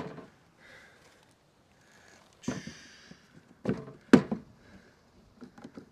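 Wooden hive-box parts and tools being handled during assembly: a knock with a brief hiss, then two sharp knocks close together, and a few light ticks near the end.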